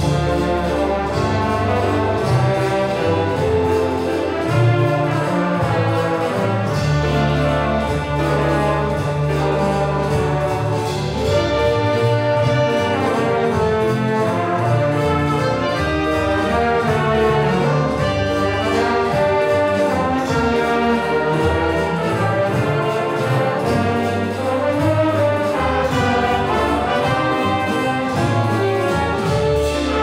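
A jazz big band playing, with trumpets, trombones and saxophones leading over piano, bass and drums.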